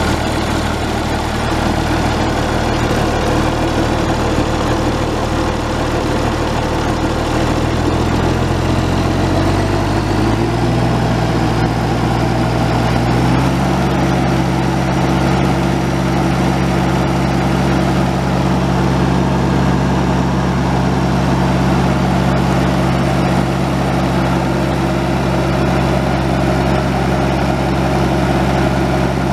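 The Hercules 7.8-litre six-cylinder turbo diesel of a 1987 White 2-155 tractor running at idle. Its speed is raised in two steps, about ten and thirteen seconds in, and then held steady at the higher engine speed.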